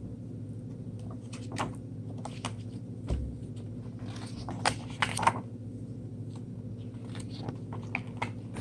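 A few soft rustles and clicks of a book being handled as its pages are turned, over a steady low electrical hum.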